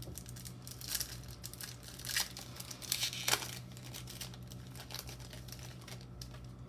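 Foil wrapper of a baseball card pack being torn open and crinkled: a run of crackling rips, loudest from about one to three and a half seconds in, then fainter rustling of the wrapper and cards.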